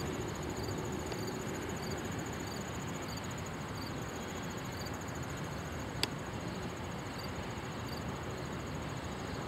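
Steady low rumble of trains at the track, with insects chirping about twice a second and a single sharp click about six seconds in.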